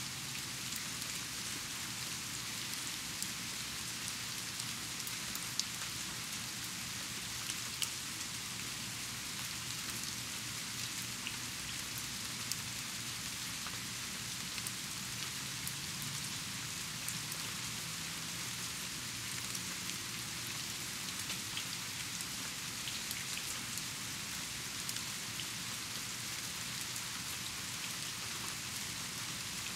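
Steady rain falling: an even hiss, with scattered sharp ticks of single drops striking.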